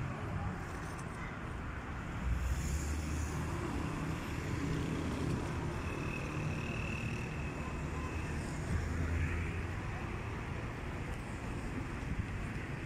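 City road traffic: cars driving past on a busy avenue, a steady rumble of engines and tyres that swells as nearer cars go by, about two seconds in and again near nine seconds.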